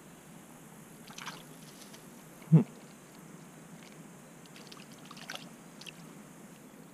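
Faint splashing in shallow water as a northern water snake goes after a small hooked fish on the line, with one short, sharp sound about two and a half seconds in.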